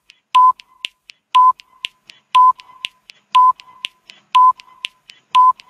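Countdown timer sound effect: a short electronic beep once a second, six times, with a faint tick between beeps.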